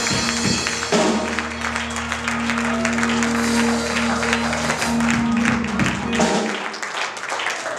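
Church keyboard holding a chord over a bass note, fading out about six seconds in, with hand claps from the congregation.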